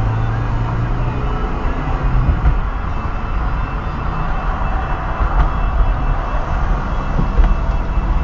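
Car driving at speed and picking up speed to about 30 mph: a steady rumble of tyre and road noise with engine hum, heard from inside the cabin through a windshield-mounted dashcam.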